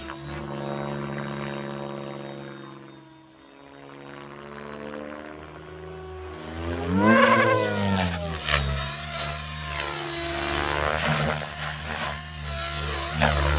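Electric Logo 600 SX v2 RC helicopter in 3D aerobatic flight: rotor blades beating and the electric motor whining. The sound fades about three seconds in, then swells loudly, rising and falling in pitch as the helicopter sweeps close overhead about seven seconds in.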